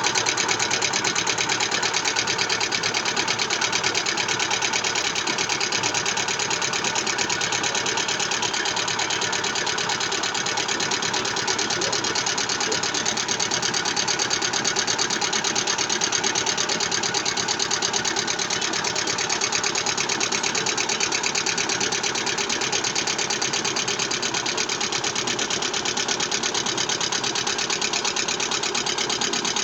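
Lada Vesta engine running with a steady, rapid knocking clatter, a knock that goes with low oil pressure.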